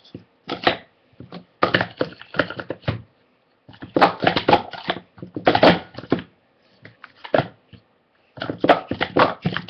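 Plastic sport-stacking cups clattering as they are rapidly stacked up and down on a stacking mat. The clicks come in quick runs with short pauses between them, and there is a brief lull a little before the end.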